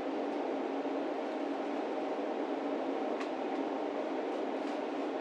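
A steady mechanical drone with a low, even hum, and a couple of faint ticks a little after halfway and near the end.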